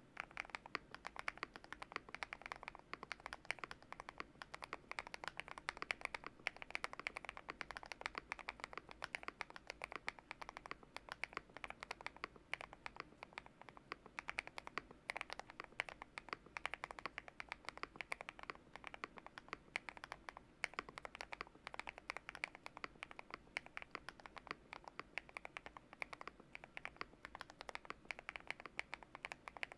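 Fast, continuous typing on a GMK67 mechanical keyboard with BSUN Paradise Island switches lubed with Krytox 205g0, the case dampened with tape mod, case foam, plate foam and switch pad: a quick, unbroken run of key clacks.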